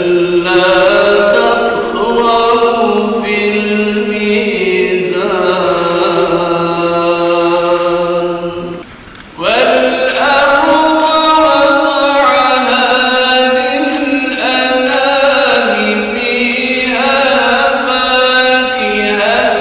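A man chanting a Qur'an recitation (tilawat) in long, ornamented held lines. He breaks for a breath about nine seconds in, then starts a higher phrase with a rising glide.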